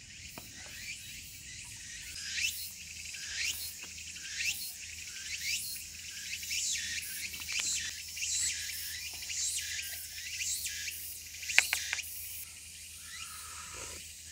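Insects calling in a high, steady chorus, with a repeated downward-sweeping call about once a second. A sharp click sounds near the end.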